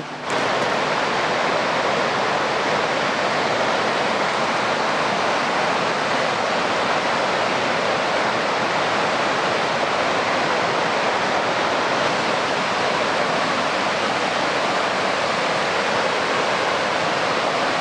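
Waterfall: a steady rush of falling water with no change in level.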